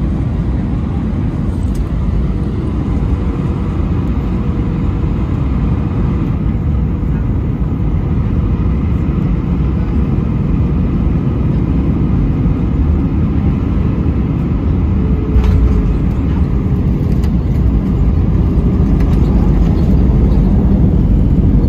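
Cabin noise inside an Airbus A319 airliner: a steady low rumble of airflow and its CFM56 engines, growing slightly louder toward the end, with a faint click about fifteen seconds in.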